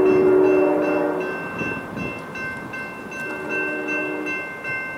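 Diesel locomotive air horn sounding a chord for an approaching train: a long blast that ends about a second in, then a shorter, fainter blast near the end. A grade-crossing bell rings steadily in quick repeated strokes.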